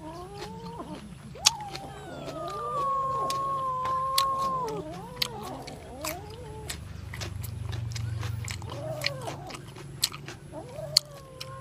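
An animal crying in long, wavering calls, loudest in the first half, along with the sharp clicks of someone chewing crisp grilled pork.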